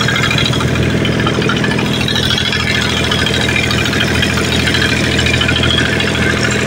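Fishing boat's engine running steadily, with a fast, even pulse.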